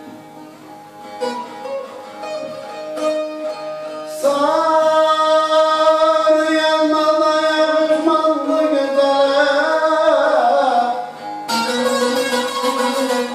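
Turkish folk song with bağlama (long-necked saz): plucked bağlama notes, then from about four seconds in a man sings one long held, wavering note over it, and near the end the bağlama strumming comes back in fast and loud.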